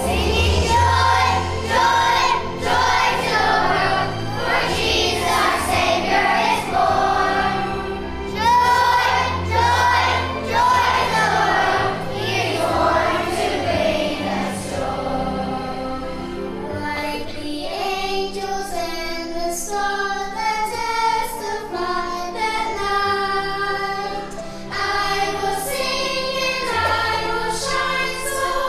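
Children's choir singing a Christian Christmas song over instrumental accompaniment with a steady bass line.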